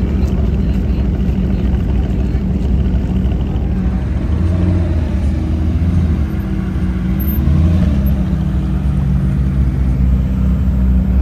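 Car engine running steadily at low revs, its pitch dipping and climbing back once about six to eight seconds in.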